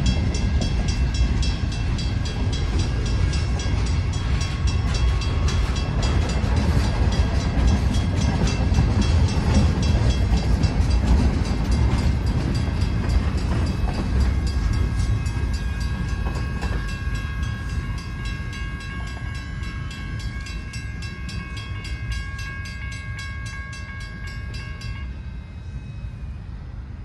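Freight train of hopper cars rolling past with a steady low rumble of wheels on rail, fading in the last third as the end of the train goes by. Over it a grade-crossing bell rings with rapid, even strokes and stops about 25 seconds in, once the crossing is clear.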